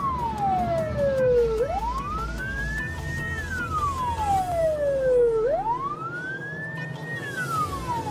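Police car siren wailing, its pitch climbing over about a second and a half and sliding back down over about two seconds, about two full cycles. It is heard from inside the moving car, over steady engine and road rumble.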